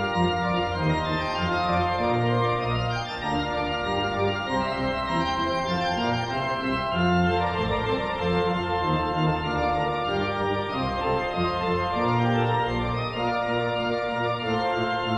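Pipe organ music: full held chords over a bass line that changes note every second or two.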